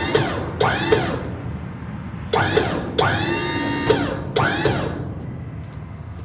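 Steel dump bed and its hydraulic hoist squealing and creaking as the bed is raised: a string of about five pitched metal squeals, each rising then falling in pitch, with one held for about a second, over a steady low hum.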